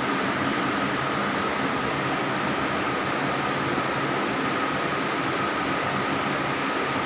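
Electric wall fans running: a steady whirring rush with a faint, constant high whine.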